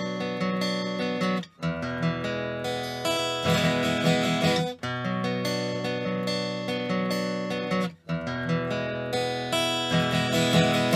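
Background music: strummed acoustic guitar, with brief breaks between phrases about every three seconds.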